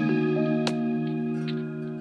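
Calm instrumental background music: held notes shifting in pitch, with a light click about two-thirds of a second in and another near the end.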